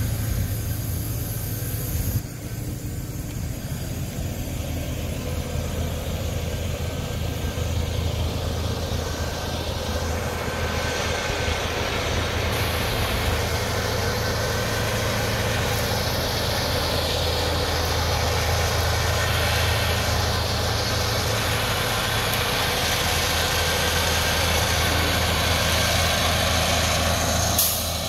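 Large engine idling steadily: a low, even hum with a hiss over it.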